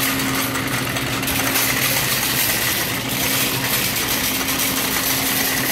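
Wire shopping cart rolling and rattling as it is pushed across a hard store floor: a steady rumble with a faint hum underneath.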